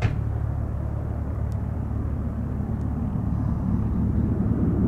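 Boeing 737-400's jet engines rumbling as the airliner climbs away after takeoff, a steady low roar that swells louder near the end.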